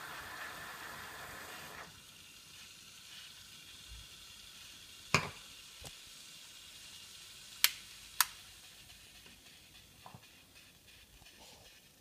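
La Pavoni Professional lever espresso machine's steam wand hissing in a pitcher of milk, cutting off sharply about two seconds in. A few seconds later come three sharp clicks.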